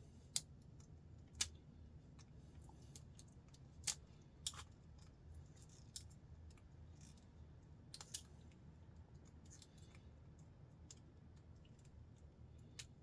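Pliers clicking and snapping on a plastic RJ45 network plug as its gold-plated pins are worked out: about seven sharp, irregularly spaced clicks over a faint low hum.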